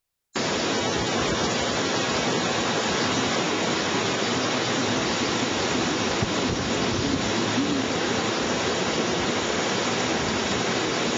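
Hurricane Katrina's wind rushing steadily and hard, an unbroken noise with no let-up, starting abruptly just after the start.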